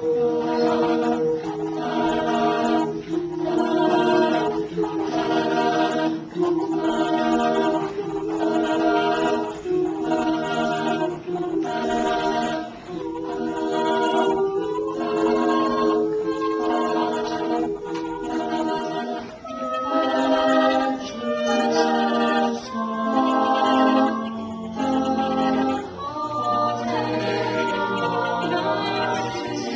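An a cappella group singing in several voice parts, with no instruments. The backing voices pulse in an even rhythm a little under a second apart, and the texture changes about two-thirds of the way through.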